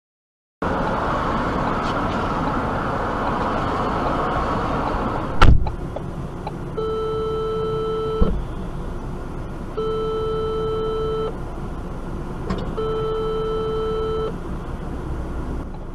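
Car driving with steady road noise heard from inside the cabin, then a sudden loud crash of a collision about five and a half seconds in and a smaller knock shortly after. An electronic beeping tone then sounds three times, each about a second and a half long, at even three-second intervals.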